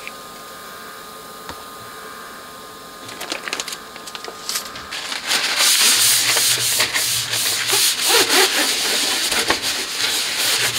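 A cloth wiping foam cleaner off an amplifier's top cover in irregular back-and-forth rubbing strokes. The strokes start about three seconds in and get louder and busier from about halfway through.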